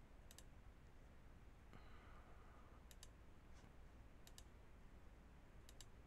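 Faint computer mouse button clicks in quick double-click pairs, four times, over quiet room hiss.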